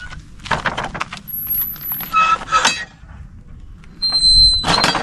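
Metal lever latch and fittings of a wooden field gate clicking, scraping and clinking as the latch is worked and the gate is pushed open. There is a short squeak just after four seconds in, then a loud metallic clatter at the end.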